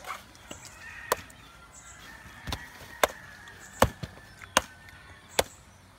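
Bolo knife chopping into a young green coconut (buko): about six sharp whacks, roughly one every second or less.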